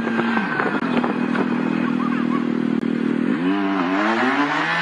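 Police motorcycle engine running while riding, its note holding steady and then dipping and climbing again about three seconds in, with road and wind noise behind it.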